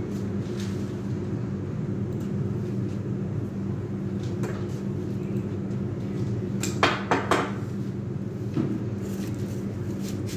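A steady low hum with a quick cluster of three or four sharp clicks and knocks about seven seconds in and a lighter one a little later, from artificial flower stems being handled and set into a vase on a hard counter.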